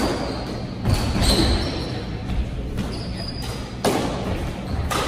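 Squash ball cracking off racquets and the court walls during a doubles rally, each hit ringing in the enclosed court: sharp strikes about a second in and again near the end. Brief high squeaks in between from players' shoes on the hardwood floor.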